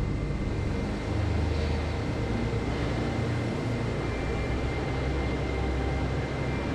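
Jet airliner on the runway during landing: a steady rush of engine and airflow noise over a low rumble, with a faint steady high whine.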